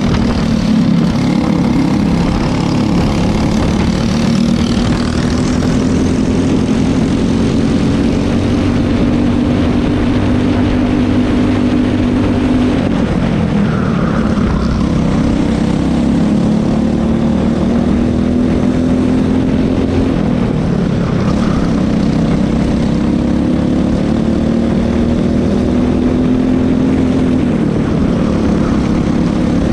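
Racing kart's single-cylinder engine heard onboard at racing speed, its pitch climbing steadily along the straights. It drops sharply three times as the driver lifts for corners, about halfway, about two-thirds of the way through, and near the end, then climbs again. A rushing noise of wind and tyres runs under it.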